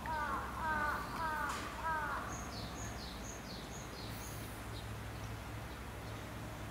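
Birds calling: four short calls, each falling in pitch, about half a second apart, then a run of about six quick, high chirps. A steady low hum runs underneath.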